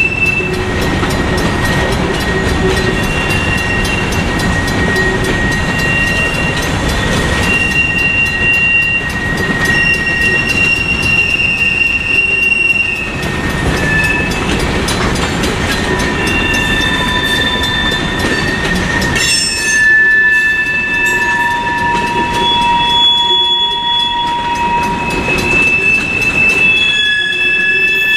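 Freight cars, covered hoppers and then tank cars, rolling steadily over the rails at a road crossing with a continuous low rumble. Wheels squeal at several high, steady pitches that come and go and change from one to another.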